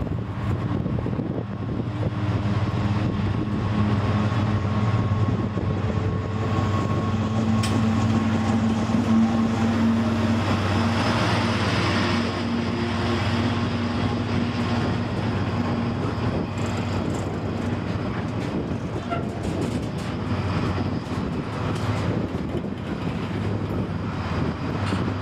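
Freightliner Class 70 diesel locomotive with its GE PowerHaul V16 engine under power, hauling a container freight train past close by. The engine note is loudest as the locomotive passes, about ten to twelve seconds in, then gives way to the steady rumble of the container wagons rolling by.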